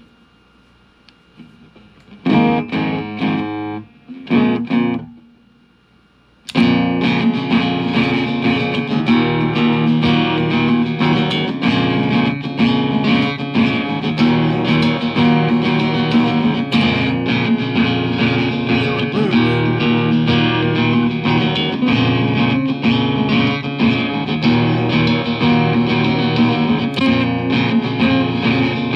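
Guitar played through a Donner looper pedal: a few short strums, then from about six and a half seconds in a sudden loud, continuous passage of playing.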